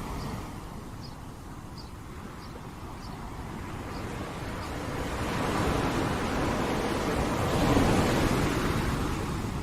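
Sea waves breaking on a shore: the surf swells to a peak about eight seconds in, then washes back.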